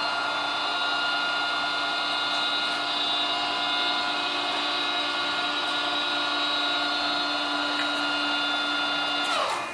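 Radial arm drilling machine's spindle and gear head running at a steady speed, a steady mechanical whine with several fixed tones. Near the end it winds down, its pitch falling as it stops.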